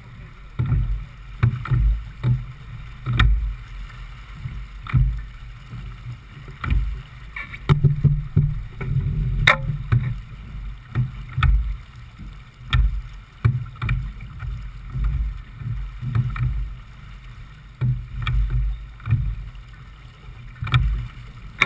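J/24 keelboat under sail through chop: irregular low thumps and rushing as waves slap and run along the hull, about once a second, mixed with wind buffeting the microphone.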